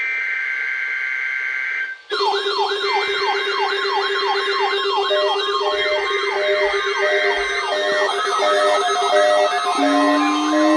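NOAA Weather Radio's SAME data burst, a two-tone digital screech, cuts in. About two seconds in, a bank of activated weather-alert receivers and sirens goes off together: several electronic wailing sirens sweeping up and down a few times a second, a higher warble and pulsed beeps, all layered.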